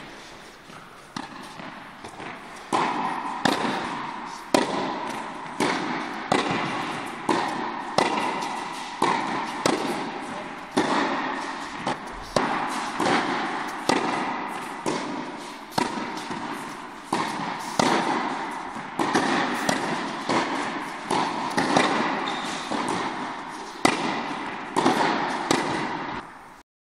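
Tennis balls struck by racquets and bouncing on an indoor hard court in a steady warm-up rally, each sharp pop echoing around the hall. It cuts off abruptly near the end.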